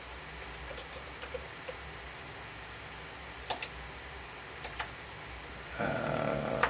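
A few scattered keystrokes on a Commodore 64 keyboard: soft ticks, then two pairs of sharper clicks about a second apart, over a low steady hum. A brief louder noise comes in near the end.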